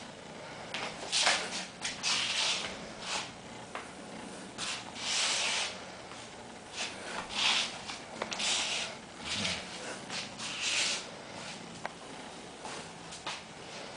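Irregular rubbing and scuffing sounds: short, hissy bursts about once a second, some longer, with a few light clicks in between.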